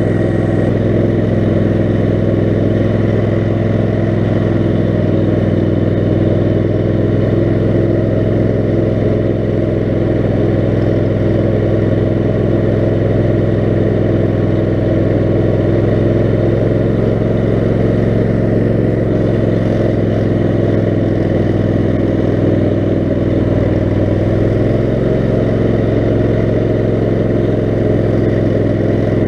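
Kohler 18 HP Command engine of a lifted 6x4 off-road lawn mower, running steadily at an even throttle with no big revs.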